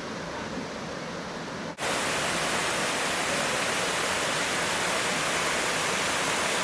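Steady rush of a stream and waterfall. About two seconds in it breaks off for an instant and comes back louder and fuller.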